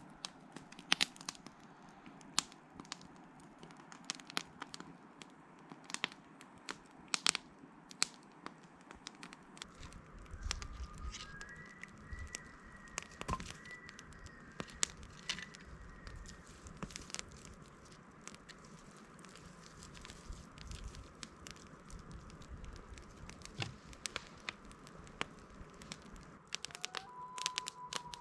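Campfire crackling: irregular sharp pops and snaps over a low hiss, with a few faint high whistled notes in the middle and near the end.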